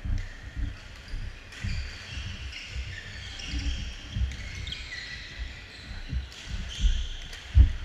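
Athletic shoes squeaking on a hardwood gym floor and repeated low thuds of players' footfalls during badminton play, the loudest thud near the end.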